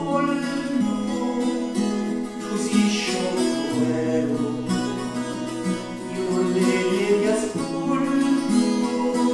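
Live acoustic duet: an acoustic guitar and a smaller plucked string instrument playing a slow melody over sustained bass notes.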